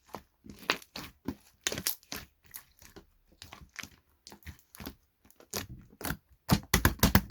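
Irregular crisp clicks and crunches, a few a second, then a quicker, louder run of clicks about six and a half seconds in.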